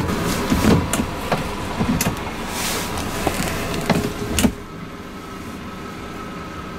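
Suzuki outboard running slowly at trolling speed. For about the first four and a half seconds a series of clicks and knocks comes from the remote throttle-shift lever being nudged; after that only the steadier, quieter engine sound is left.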